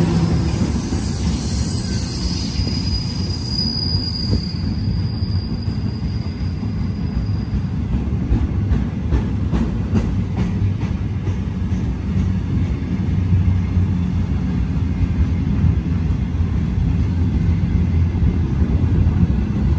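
Empty freight flat wagons rolling past with a steady rumble of wheels on rails. A high wheel squeal comes through for a few seconds early in the run, then a run of sharp clicks as wheels cross rail joints.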